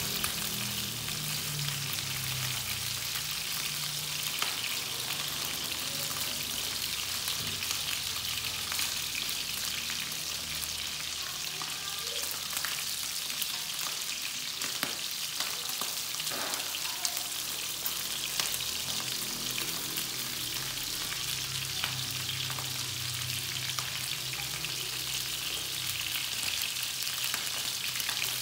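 Pork ribs sizzling as they fry in a pan, a steady hiss, with occasional light clicks of chopsticks stirring against the cookware.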